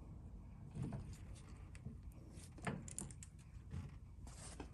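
A few faint, short clicks and knocks of handling: a crankbait lure being fixed onto its painting stand and a metal airbrush picked up.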